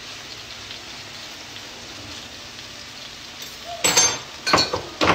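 Chicken pieces sizzling steadily in a stainless skillet, then three loud knocks and scrapes of a utensil against the pan near the end as the chicken is stirred.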